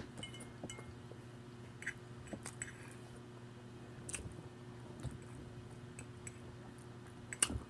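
Close-up chewing and lip smacking while eating, with scattered short wet mouth clicks and one sharper click near the end.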